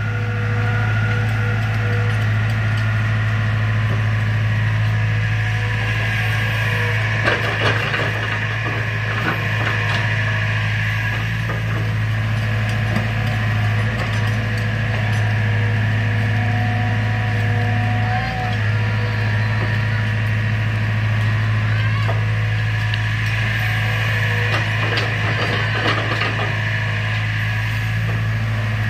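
Diesel engines of an excavator and a farm tractor running steadily with a low drone. Clanks and knocks come from the excavator working as it loads soil into the tractor's trailer, clustered about seven to ten seconds in and again near the end.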